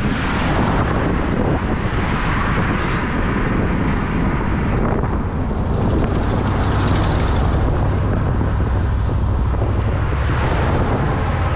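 Road noise from a passing motor vehicle, its tyre hiss swelling and fading about halfway through, over a steady low rumble of wind on the microphone.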